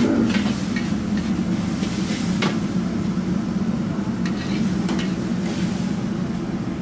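Stir-frying noodles in a wok: a long metal ladle stirs and scrapes through the food, with a few sharp clicks of the ladle against the wok, and sizzling over a steady low rumble.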